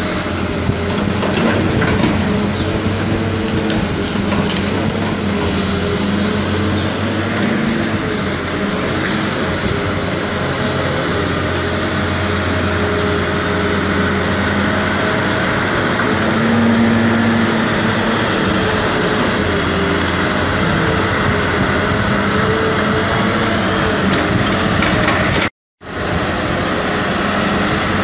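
Caterpillar 320B hydraulic excavator's diesel engine running steadily while it works demolition debris, with a few sharp knocks from the rubble in the first couple of seconds.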